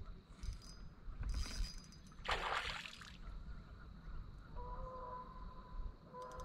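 A short splash of water about two seconds in from a hooked fish on a fishing line, over a low steady rumble of wind and water. Faint steady tones come in near the end.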